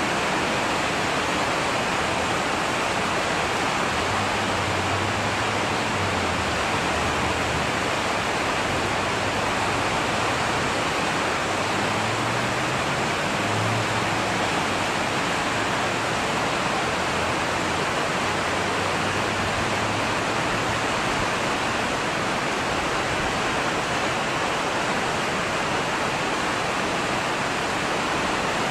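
Fast, swollen white-water river rushing steadily over rocks, with a faint low hum now and then.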